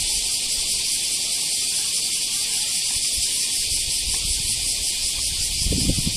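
Steady high hiss of outdoor ambience, with low gusts of wind buffeting the microphone near the end.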